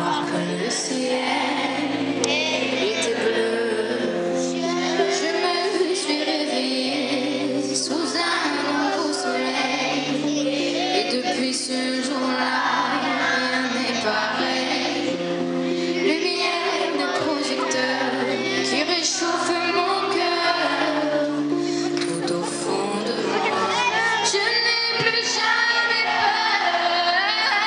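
A woman singing a slow song live, accompanied by held keyboard chords that change every couple of seconds; the accompaniment fills out near the end as the band comes in.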